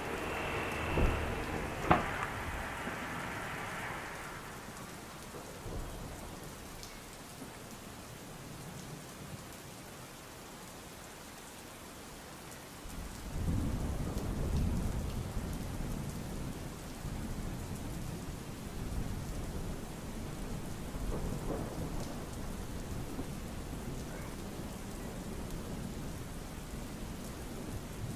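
Steady heavy rain with thunder, a low rumble building about halfway through and rolling on to the end. At the start a motor hum fades away over a few seconds, with two sharp clicks.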